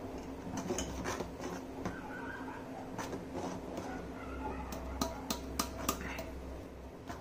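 A spoon stirring milk in a stainless steel bowl, scraping and clicking against the metal, with a cluster of sharper clicks about five seconds in. A steady low hum runs underneath.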